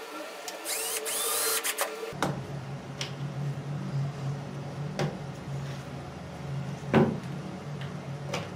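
Cordless drill whirring briefly about a second in, driving in a screw for a small metal door latch. A steady low hum then sets in, with a few sharp clicks and knocks, the loudest about seven seconds in.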